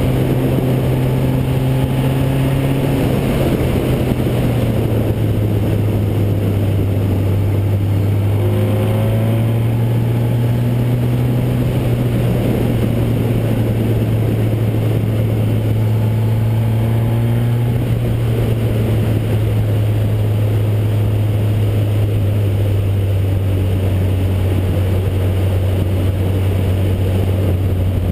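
Formula Basic single-seater race car's engine running hard on a lap, heard from the car itself. Its note drops about four seconds in, climbs again, then slowly falls toward the end, over a constant rush of wind and tyre noise.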